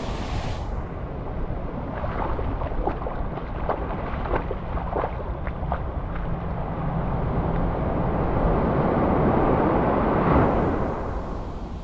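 Wind buffeting the camera microphone over the wash of surf, with a few short crackles in the middle.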